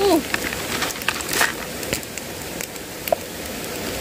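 Steady rush of flowing stream water, with a few sharp clicks and crackles over it.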